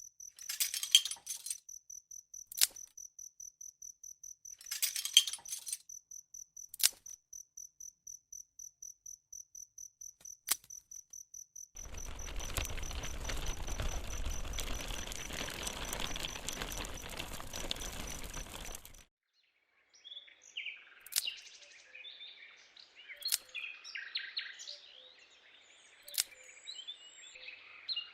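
Cricket-like chirping: a high, even tone pulsing about three times a second, with a few sharp clicks, for about twelve seconds. Then comes about seven seconds of steady rushing noise that cuts off suddenly. Scattered bird-like chirps follow.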